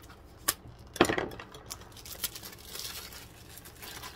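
Plastic shrink-wrap being torn and crinkled off a DVD case. A sharp click comes about half a second in and a louder snap about a second in, followed by continuing crinkling rustle.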